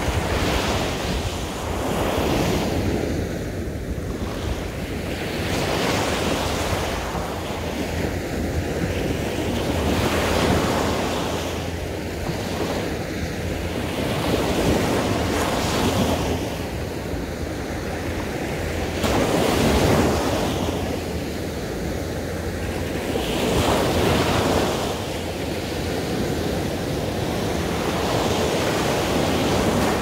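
Small sea waves breaking on a sandy beach and washing up the shore, the surf swelling and falling back about every four to five seconds. Wind rumbles on the microphone underneath.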